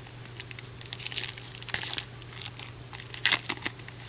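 Trading card pack wrapper crinkling and tearing in irregular crackles as the pack is opened by hand.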